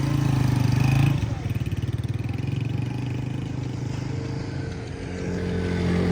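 Honda CG 125's single-cylinder four-stroke engine running as the motorcycle sets off; the engine note drops after about a second and grows louder again near the end.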